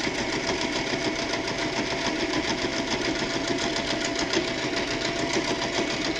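Domestic electric sewing machine running at a steady speed, stitching a seam in fabric: a rapid, even patter of needle strokes over a steady motor whine.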